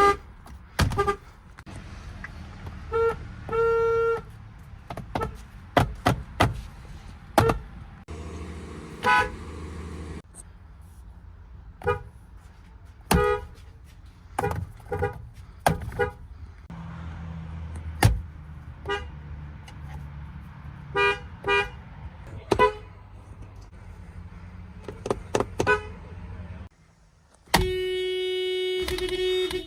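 A rapid succession of different car horns, each clip a short toot or double beep of its own pitch, cut abruptly one after another over street and engine background. Near the end one horn is held as a single long steady blast.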